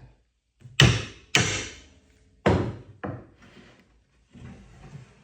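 Sharp wooden knocks as a drawer slide is tapped against a wooden drawer box so its location pin presses an indent into the wood. Two loud strikes about a second in, two more a little later, then fainter taps near the end.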